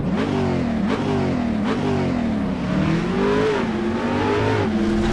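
Car engine revving hard and accelerating through the gears. Its pitch climbs and drops back several times, as at gear changes, then levels off near the end.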